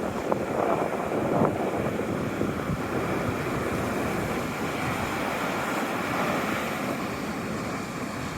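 Sea waves washing against the shore, a steady rushing noise, with wind buffeting the microphone.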